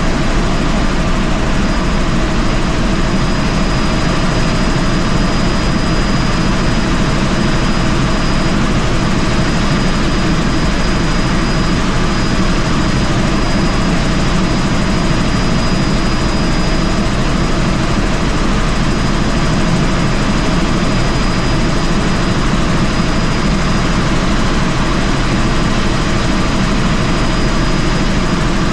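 Helicopter in flight: a steady, loud drone of rotor and engine noise with a thin, high, steady whine running through it.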